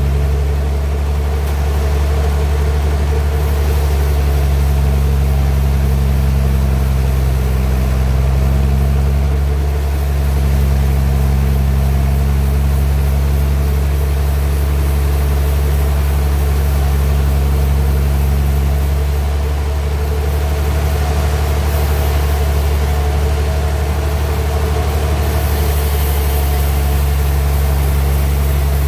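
Portable sawmill's engine running steadily.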